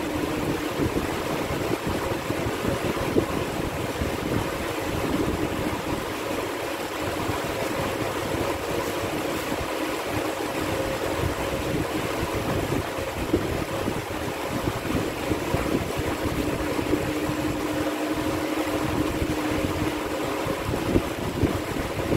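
Steady rushing background noise with a faint, even hum underneath.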